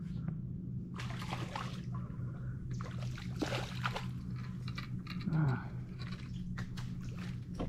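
Splashing at the surface of shallow water as bait is tossed in and fish strike at it, in two short bursts, over a steady low hum.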